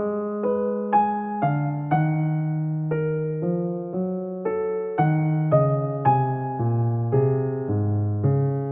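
Background music: a soft electric piano melody, notes struck about twice a second over held bass notes.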